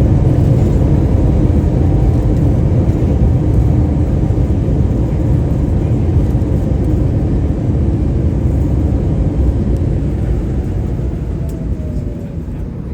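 Cabin noise inside an Airbus A320 airliner during its arrival: a loud, steady low rumble of engines and airflow that eases off toward the end, with a faint whine falling in pitch.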